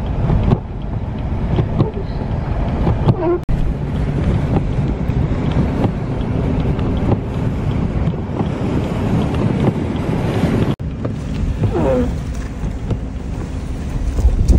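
Wind and the low, steady rumble of a car driving through a blizzard, with wind buffeting the microphone. The sound drops out sharply for an instant twice, about three and a half and eleven seconds in.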